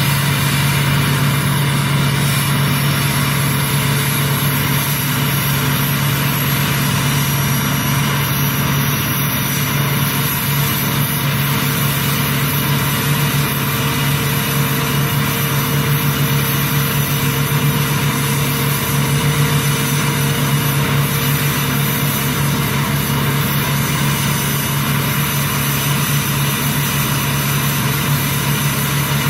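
2006 LBZ Duramax 6.6-litre V8 turbodiesel idling steadily at its exhaust tip, warming up after a cold start at 27°F. An even, unchanging low hum with no revving.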